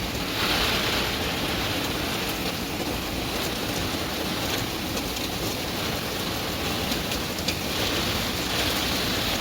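Heavy typhoon rain and wind, a steady noisy downpour with scattered drops ticking on surfaces. It swells briefly about half a second in and again near the end.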